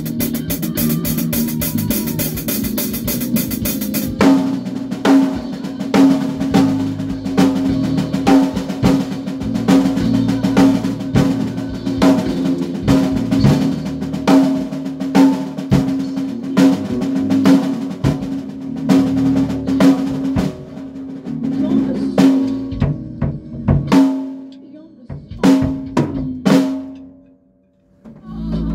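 A band rehearsing, with a drum kit playing a steady beat of snare and bass drum over a sustained held note and a cymbal wash in the first few seconds. The playing stops near the end and then starts up again.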